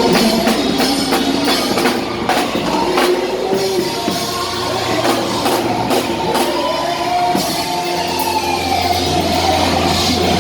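Live church worship music with a drum kit, guitar and voices.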